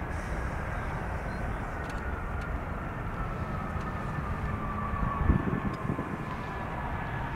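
Boeing 737 MAX jet's CFM LEAP-1B turbofan engines running as the airliner moves along the runway: a steady low rumble with a thin engine whine that slowly falls in pitch, and a brief louder low surge about five seconds in.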